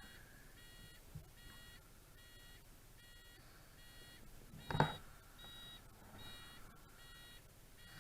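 An electronic beeper sounding a short tone over and over, a little under two beeps a second, steady throughout. One short, sharp, loud sound cuts in just before the five-second mark.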